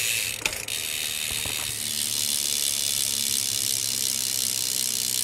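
BMX rear hub's pawls clicking so quickly that they merge into a steady, high buzz as the back wheel coasts, not really all that loud. A couple of separate clicks come in the first two seconds.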